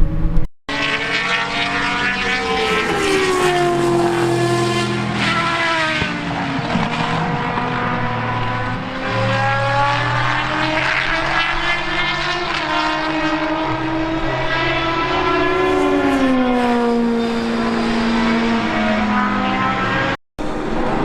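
Racing car engines at speed on a circuit, the engine note sweeping down and back up again and again as the cars lift, brake, shift and accelerate. The sound breaks off sharply about half a second in and again near the end.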